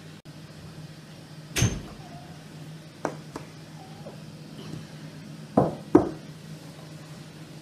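Knocks and clicks of things being handled on a table over a steady low hum. There is one sharp knock about one and a half seconds in, two lighter clicks around three seconds, and two louder knocks close together near six seconds.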